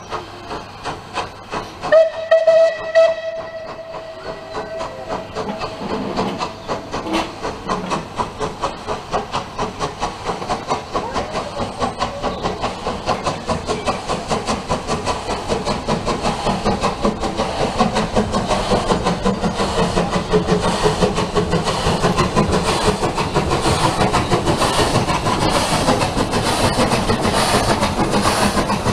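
Rebuilt Bulleid Light Pacific steam locomotive No. 34027 Taw Valley pulling away with its train, its three-cylinder exhaust beats quickening and growing louder as it comes closer. About two seconds in there is a short blast on a steam whistle.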